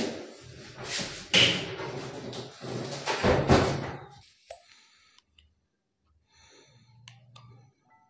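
Front-load washing machine being tilted and rocked on a tiled floor: a run of heavy knocks, thuds and scrapes from the cabinet and its loose drum, loudest about a second and three seconds in. After that come only faint handling sounds.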